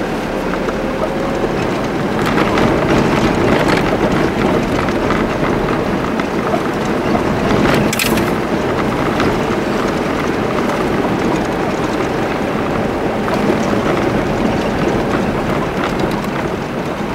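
Vehicle driving on a dirt track: a steady road and engine rumble with scattered light rattles, and a short hiss about eight seconds in.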